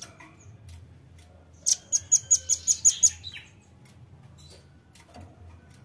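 Velvet-fronted nuthatch calling: one quick run of about eight sharp, very high chipping notes, lasting about a second and a half, a couple of seconds in.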